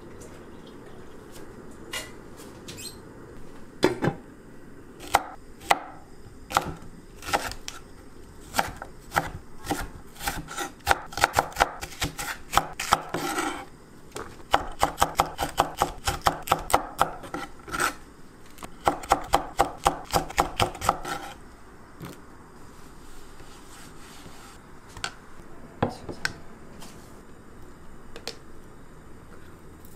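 A large kitchen knife chops green onion and chili peppers on a wooden cutting board. A few scattered strokes come first, then several quick runs of rapid chopping through the middle, and the strokes thin out to a few before stopping near the end.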